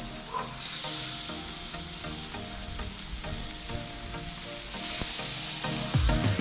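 Marinated snook sizzling on a hot barbecue plate: a steady frying hiss that swells about half a second in.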